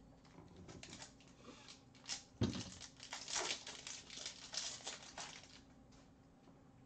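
A thump about two and a half seconds in, then a hockey card pack's wrapper being torn open and crinkled by hand for about three seconds.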